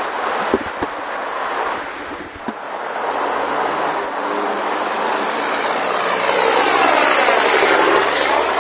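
Rushing wind and road noise from riding a bike, with a couple of knocks in the first second as a hand touches the camera. An engine drone builds and passes close, loudest about seven to eight seconds in.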